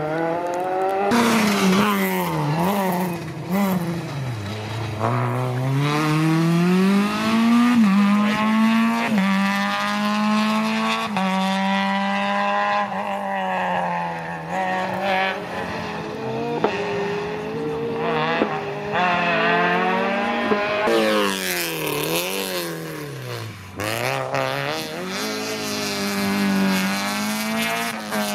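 Rally car engines driven hard along a special stage. The pitch climbs and falls repeatedly as the cars shift through the gears, with deep drops when they brake. One car passes, and a second car arrives near the end.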